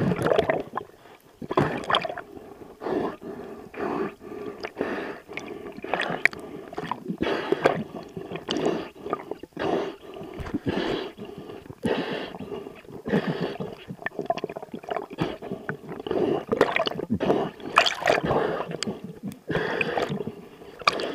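Water gurgling and sloshing, recorded underwater near the surface, in irregular surges one or two a second.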